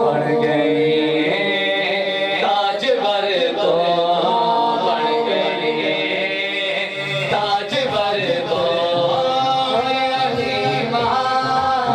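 Three male voices singing a Punjabi naat together into microphones, with long held notes.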